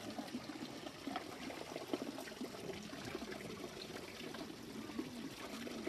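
Thin streams of natural spring water running from spouts under a wooden trough and splashing into a pool below: a steady trickling with small irregular splashes.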